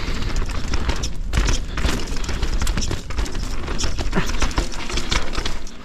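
A 170 mm-travel enduro mountain bike ridden fast down rough, technical dirt singletrack: a continuous jumble of rattles, clacks and knocks from the chain and frame as the tyres hit the ground, over a low rumble.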